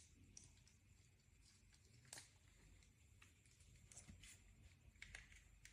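Near silence: room tone, broken by a few faint clicks and taps.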